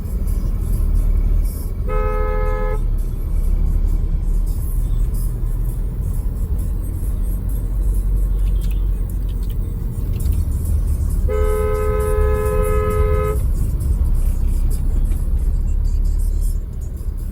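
Vehicle horn honking in heavy street traffic: a short blast about two seconds in and a longer blast of about two seconds near the middle, each sounding two notes at once. A steady low rumble of engines runs underneath.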